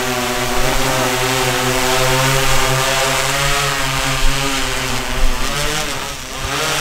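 Propellers of a large multi-rotor spraying drone humming as it lifts off and climbs overhead: a steady buzzing hum whose pitch wavers, then bends and dips briefly near the end.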